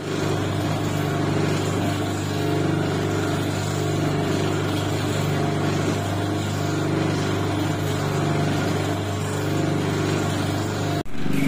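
Steady hum of the electric motor driving a dodol (jenang) stirring machine as its paddle turns through thick dodol in a wok.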